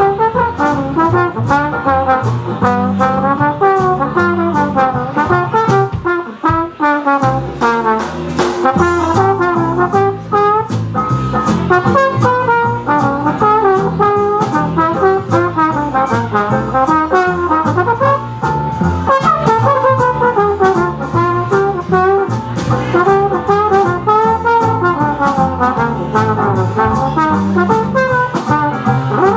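Swing jazz band playing live: an instrumental passage with the trombone carrying the melody over a steady beat of double bass and strummed banjolele.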